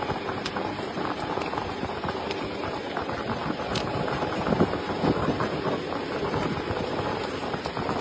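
Workshop machinery running with a steady clattering hum, dotted with scattered sharp clicks and knocks, one sharper click near the middle.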